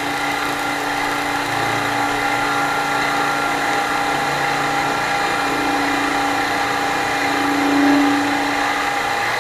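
Milling machine spindle running as an end mill takes a shallow climb-milling cut around a folding-knife liner's pivot relief. A steady whine and hum, with the low hum swelling louder for about a second near the end.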